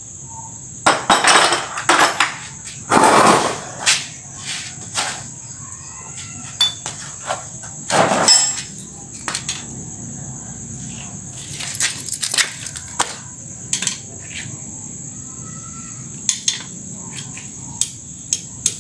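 Hand tools knocking and clinking against a diesel engine block while bolts are worked with a ratchet and T-handle wrench: irregular sharp metal knocks, with a few longer scraping strokes about a second in, around three seconds in and around eight seconds in. Crickets chirr steadily and high-pitched in the background.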